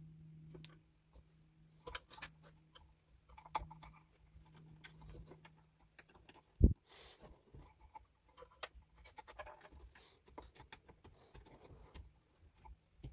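Faint rustling and small clicks of wires and plastic crimp connectors being handled and threaded through a hole in sheet-metal floor, with one sharp knock about six and a half seconds in. A low steady hum runs underneath for the first half and stops.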